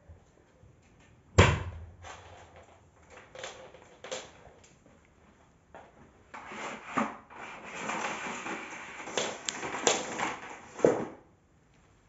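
Plastic body of a Bosch BGS21X320 canister vacuum cleaner being knocked and then pushed by foot across a hard floor. A sharp knock comes about a second and a half in, then a few lighter knocks, then several seconds of rolling and rattling with clicks, ending in a thump near the end. There is no motor hum.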